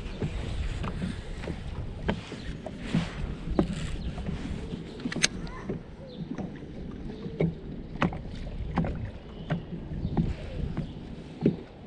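Small waves slapping against a fishing boat's hull, with irregular clicks and knocks from handling the rod and baitcasting reel close to the microphone, over a low rumble.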